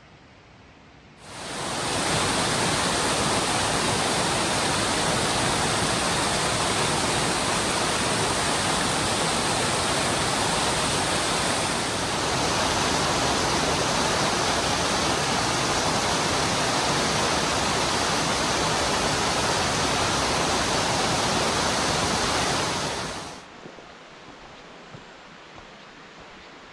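Spray Falls, a 354-foot waterfall, rushing: a loud, steady hiss of falling water that starts suddenly about a second in and cuts off near the end.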